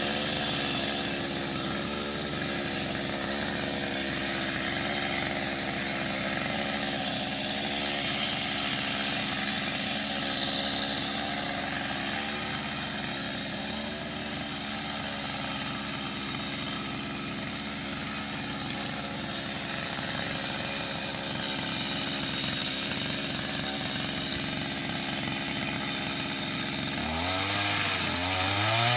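Stihl MS 250 two-stroke chainsaw engine running steadily at low speed, then revving up and down about two seconds before the end.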